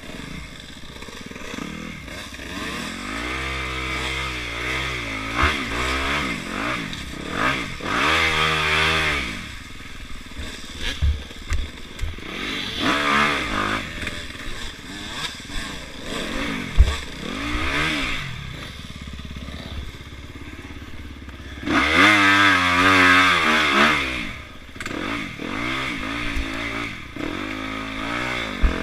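Yamaha YZ dirt bike engine revving up and falling back in repeated bursts as the bike is ridden through mud and ruts, with sharp knocks and clatter from the bike and suspension hitting the ground. The longest, loudest rev comes about three-quarters of the way through.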